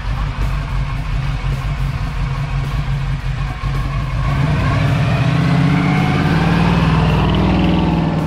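1979 Chevrolet Camaro Berlinetta's rebuilt, mildly modified engine idling with a low rumble, then revving up as the car accelerates away about four seconds in, its note rising steadily in pitch.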